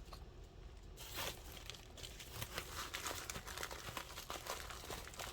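Sticker-pack packaging crinkling as it is handled, starting about a second in as a dense run of small crackles and rustles.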